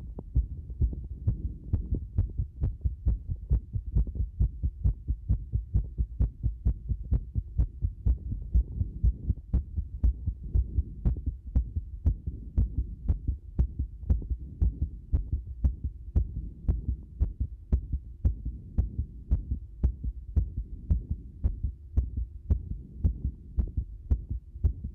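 A heart beating: a continuous run of dull, low thumps, several a second, unevenly spaced. The rhythm is irregular, with many disordered beats.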